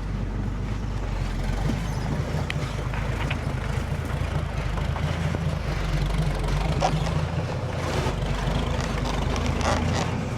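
Heavy truck engine running steadily at low revs, a constant low drone, with a few faint ticks and knocks over it.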